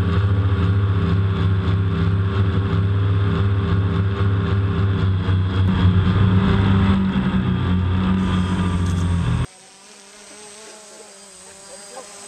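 DJI Phantom quadcopter's motors and propellers, heard through the camera mounted on it: a loud steady hum. It cuts off suddenly about nine and a half seconds in, after which the quadcopter is a faint buzz overhead.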